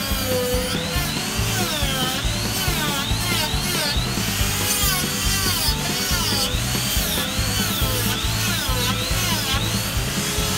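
Music with a stepping bass line and a melody that slides up and down, over the whir of a handheld rotary tool sanding cherry wood.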